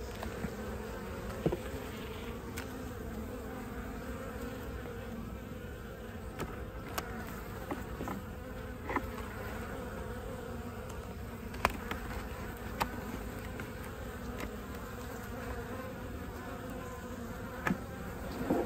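Honeybee colony humming steadily from an opened hive during a frame-by-frame inspection, with a few sharp clicks scattered through, the loudest about a second and a half in and near the middle.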